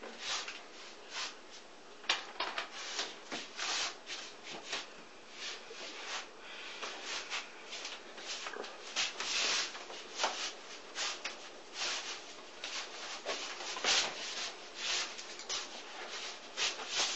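Forearms and hands rubbing and slapping against each other during Wing Chun sticky-hands (chi sao) drilling: a continuous run of quick, irregular brushing swishes and light slaps.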